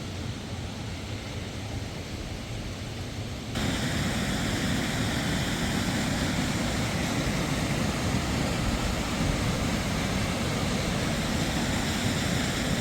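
Small mountain-creek waterfall rushing steadily, becoming suddenly louder and fuller about three and a half seconds in.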